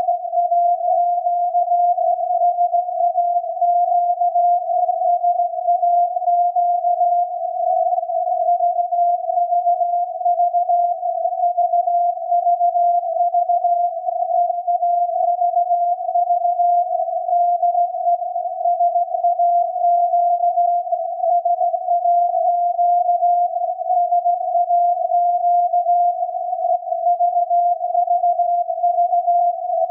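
SAQ Grimeton's Alexanderson alternator transmission on 17.2 kHz VLF, received on a loop antenna and SDR and heard as an unbroken tone near 700 Hz. Its level flutters rapidly and its pitch wavers slightly.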